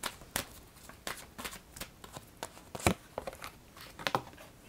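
A deck of oracle cards being shuffled and handled by hand: a run of irregular, crisp card snaps and slides, the sharpest a little before three seconds in and again near four seconds.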